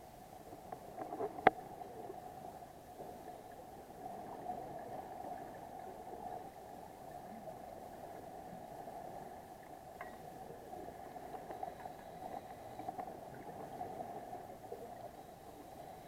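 Muffled underwater ambience picked up by a camera in a dive housing: a steady hum, with one sharp knock about a second and a half in and a few faint clicks later.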